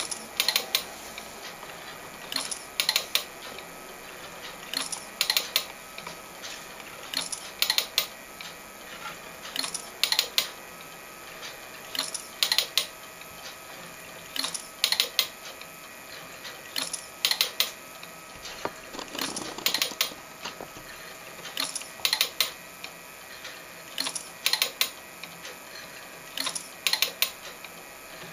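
Home-built film-scanning telecine running frame by frame: a short group of two or three mechanical clicks about every two and a half seconds as it steps the film on and the converted camera takes each frame, over a faint steady hum.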